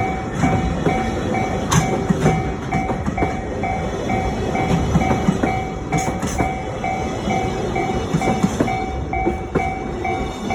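Japanese level-crossing warning bell dinging steadily, a bit more than twice a second, over the rumble and wheel clicks of container freight wagons rolling past.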